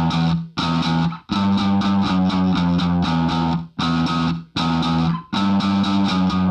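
Background rock music: electric guitar chords that stop and start, cutting out briefly about five times.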